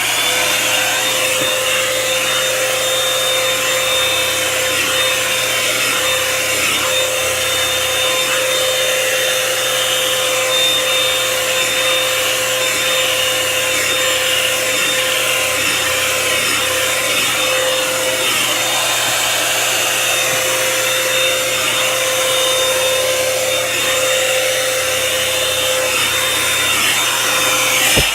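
Revlon One-Step hair dryer brush running steadily on its cool setting: a loud rush of air with a steady hum from its motor.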